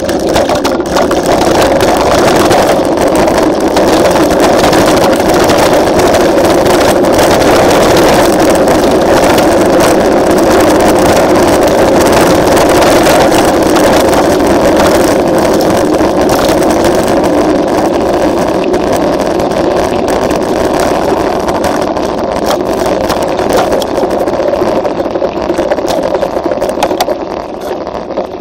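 Wind rushing over the on-board camera's microphone, mixed with mountain-bike tyres rolling over a dirt road at speed: a loud, steady rush that eases slightly near the end.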